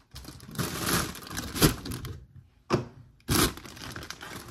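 Plastic salad bag of spinach crinkling as it is handled and opened, with three sharp crackles of the plastic from about a second and a half in.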